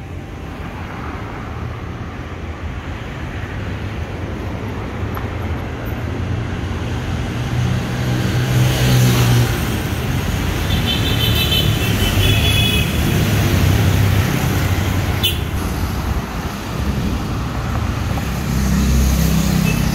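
Road traffic on a city avenue: cars and heavier vehicles running past in a continuous rumble that grows louder over the first several seconds.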